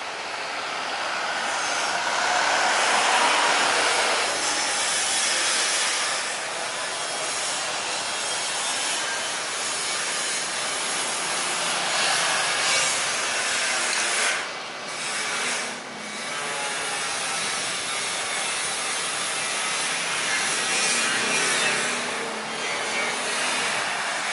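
Airbus A320-200 jet engines making a broad rushing roar as the airliner rolls out on the runway just after touchdown, spoilers raised. The noise swells over the first few seconds, dips briefly twice about two-thirds of the way through, and otherwise holds steady.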